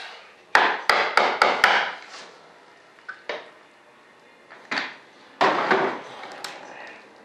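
A quick run of five sharp taps, then scattered single knocks and, about five seconds in, a second or so of rubbing with clicks. The sounds come from tapping and prying at a fibreglass composite wing mold to free the moulded wing.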